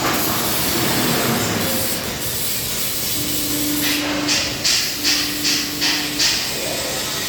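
CNC press brake machine running with a steady noisy hiss. A hum comes and goes twice, and about five short hissing bursts follow each other quickly near the end.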